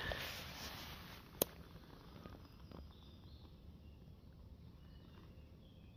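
Quiet woodland ambience with faint, short, high bird calls in the distance from about halfway through, and a single sharp click about a second and a half in.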